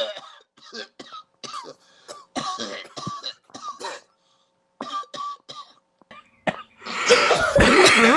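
Repeated short coughs and throat clearing in short separate bursts, with a brief pause partway through, then a louder, longer fit of coughing near the end.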